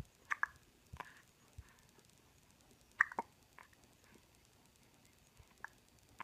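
A run of short, sharp hiccups at uneven intervals, about five in all, the loudest about three seconds in.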